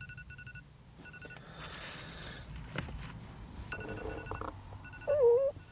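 Phone alarm beeping in short repeated bursts of a two-note electronic tone, with a rustle of movement partway through and a brief groan-like vocal sound near the end, the loudest moment.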